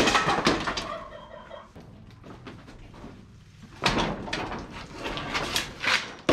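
Old barn ceiling material (boards, MDF and drywall) being pried off the joists with a bar and crashing down. It comes in two bouts of clattering debris: one right at the start and a longer, louder one from about four seconds in.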